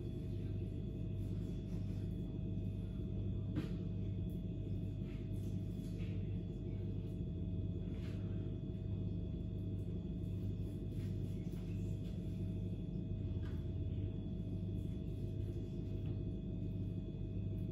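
Steady low hum made of several fixed tones, like an appliance or electrical hum in the room, with a few faint ticks of a knife cutting raw meat against a plastic tray.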